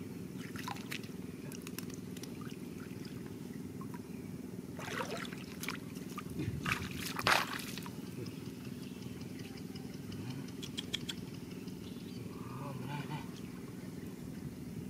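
Shallow muddy water splashing and draining as a woven bamboo fishing basket is dipped and lifted, with a burst of splashing about halfway through over a steady low background rumble.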